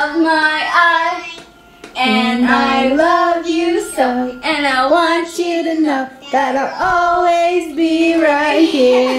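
A woman singing unaccompanied in long held notes that slide in pitch, with a short break about a second and a half in.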